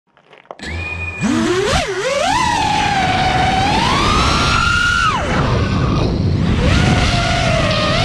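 FPV quadcopter's motors and propellers whining, spinning up sharply for takeoff about a second in. The pitch then glides up and down with the throttle, over a steady rush of prop wash.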